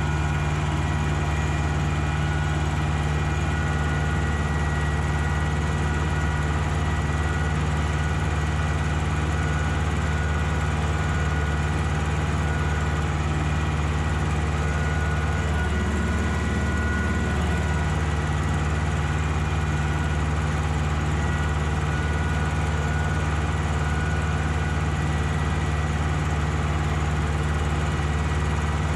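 Ursus tractor's diesel engine running at a steady speed while pulling tillage gear across a field, with a brief waver in its low hum about sixteen seconds in.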